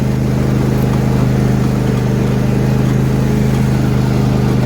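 John Deere D125 lawn tractor's 20-horsepower engine running steadily at an even pitch.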